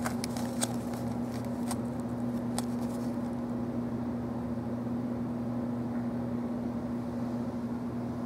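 A steady low hum over a soft hiss, with a few light clicks in the first three seconds.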